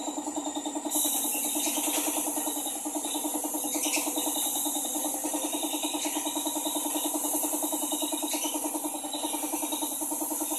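Paint spray gun hissing as compressed air atomises the paint, starting about a second in and breaking briefly a few times as the trigger is eased. Under it, an air compressor runs with a fast, steady chugging.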